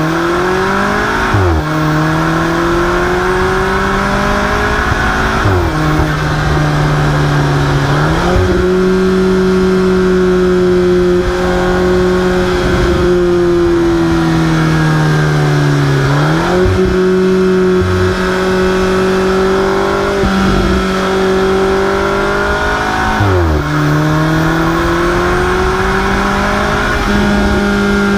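Alfa Romeo 4C's turbocharged 1.75-litre four-cylinder engine and exhaust running under way. The engine note holds mostly steady and falls then climbs back up about four times as the revs change.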